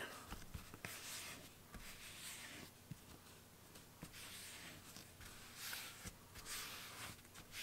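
Palms rubbing and pressing two glued veg-tan leather panels together on a work table: faint, intermittent rubbing strokes with a few light taps.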